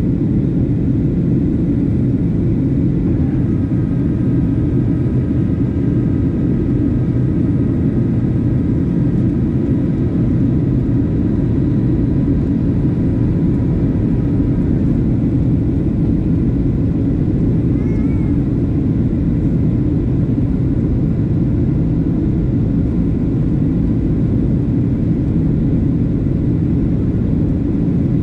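Steady low rumble of engine and airflow noise inside the cabin of a Boeing 737-700 in flight, with a few faint steady whines above it for part of the time.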